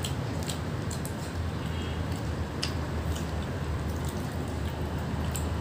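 Scattered small clicks and wet smacks of people eating a meal by hand, over a steady low hum.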